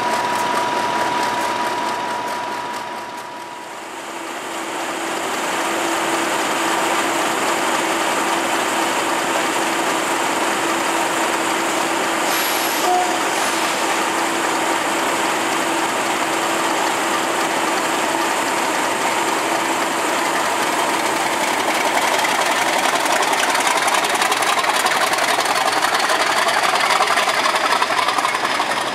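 English Electric 16-cylinder turbocharged diesel engine of a Class 50 locomotive, idling steadily. About three-quarters of the way through it opens up, growing louder with a rising whine as the locomotive takes power.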